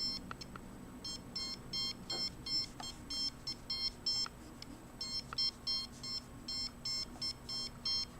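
Handheld RF meter's audio indicator beeping: runs of short electronic beeps, about three to four a second, broken by brief pauses as the measured signal level goes up and down.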